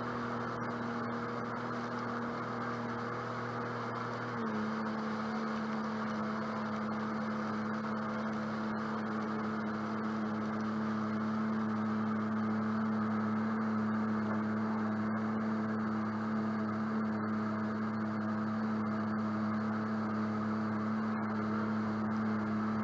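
Sea-Doo jet boat's engine and jet drive running steadily at cruising speed, with water rushing along the hull. The engine note steps down slightly about four and a half seconds in and then holds steady.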